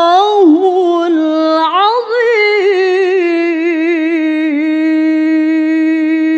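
A woman's voice chanting Quran recitation in the melodic tilawah style. She draws out the last syllables of the closing 'sadaqallahul 'azim' as one long ornamented note with vibrato. The note swoops upward about two seconds in, then holds steady.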